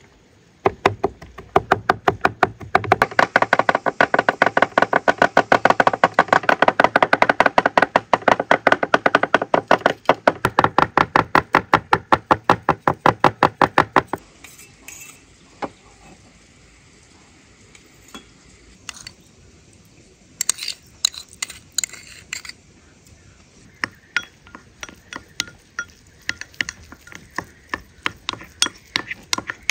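Garlic being minced with two knives on a wooden cutting board: fast, even chopping strikes, about six a second, that stop about halfway through. After scattered clicks, near the end a wooden spoon stirs garlic and tomato paste in a ceramic bowl, with quick light clicks and scrapes.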